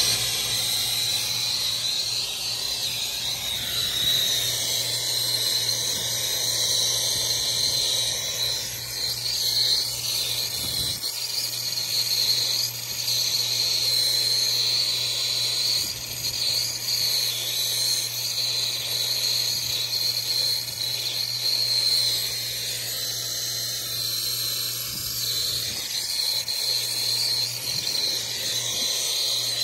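Handheld brazing torch flame hissing steadily while it heats a copper refrigerant line joint at a condenser service valve, with a steady low hum underneath.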